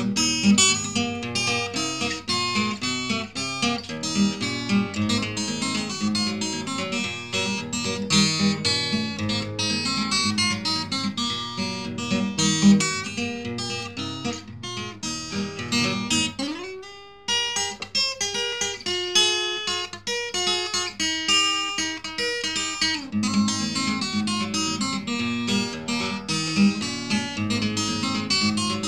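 Background music: fingerpicked acoustic guitar playing a busy run of notes, thinning out briefly about halfway through with a note sliding upward before the picking resumes.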